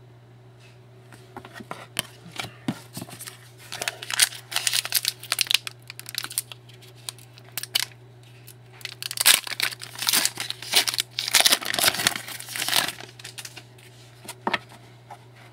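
Trading-card pack wrapper being crinkled and torn open by hand: irregular rustling and tearing, busiest about four seconds in and again from about nine to thirteen seconds in.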